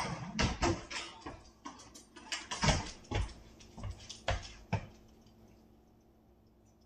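Kitchen clatter from someone moving about and handling things, a string of about a dozen irregular knocks and clanks that stop about five seconds in.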